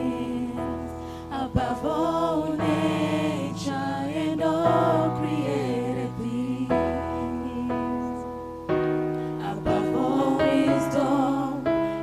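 Gospel choir singing a slow song with sustained keyboard chords underneath, the voices holding long notes with vibrato.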